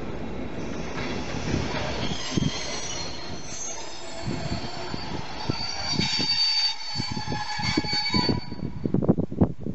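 Passenger coaches' wheels squealing against the rails as the train rolls slowly past, a steady high-pitched squeal with rumble beneath it. The squeal stops about eight seconds in, followed by a few irregular knocks.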